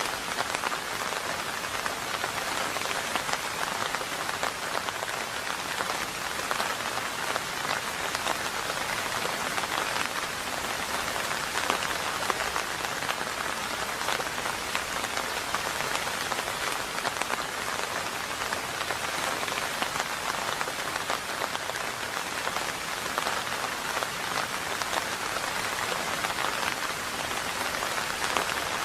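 Steady rain falling, an even, dense patter of drops.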